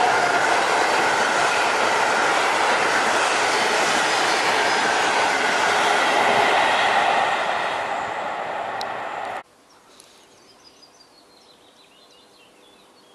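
Loud rolling rumble and rail noise of trains passing close by: an ET41 electric locomotive hauling open freight wagons, with a passenger train on the adjacent track. The noise eases slightly, then cuts off abruptly about nine seconds in, leaving faint birdsong.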